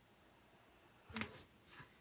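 Back cracking: one sharp pop from the spine's joints about a second in, then a fainter click near the end.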